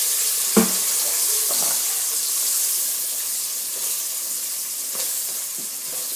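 Food frying in hot oil in a cooking pan, a steady sizzle, with a single sharp knock about half a second in.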